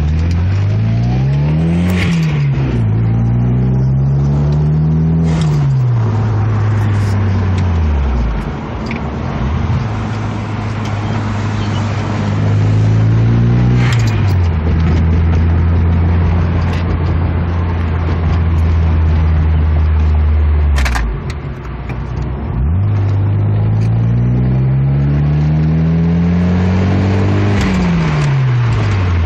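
Car engine through a newly fitted exhaust, accelerating through the gears: the note climbs and drops back at each upshift, with two shifts in quick succession early on, a long steady run in the middle, a lift-off past the middle, then another climbing pull that shifts near the end.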